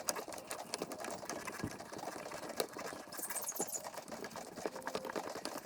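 Rapid, irregular light metallic clicking and ticking as brake-line fittings are worked onto a brake master cylinder by hand and wrench.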